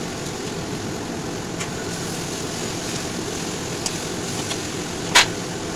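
Steady noise from the pan of vegetables cooking on the gas stove, with one sharp clink of a metal spatula against the aluminium kadai about five seconds in.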